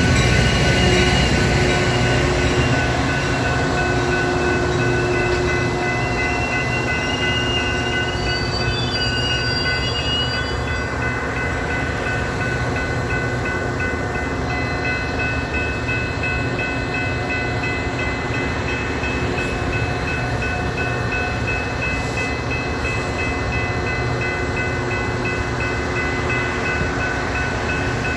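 Metra commuter train hauled by an EMD F40PH diesel locomotive, running steadily as it moves through the station. Its loud engine drone eases a little over the first few seconds, and a brief high wheel squeal comes about 8 to 10 seconds in.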